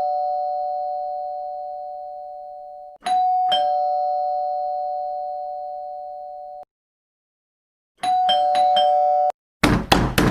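Two-note ding-dong doorbell chime, a higher note then a lower one, rung twice and each left to ring out for a few seconds; then the bell is pressed several times in quick succession. Rapid, loud knocking on a door follows near the end.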